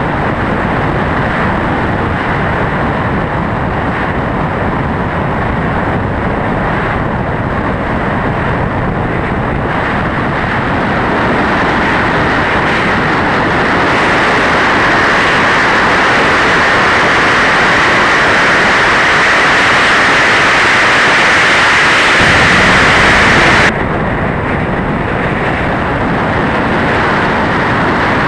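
Car running at speed, heard from an onboard camera: a loud, steady rush of engine, wind and road noise. It grows louder through the middle and drops off abruptly near the end.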